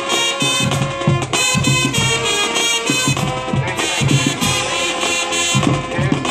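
Marching band playing: sustained brass chords over a steady, driving drum beat.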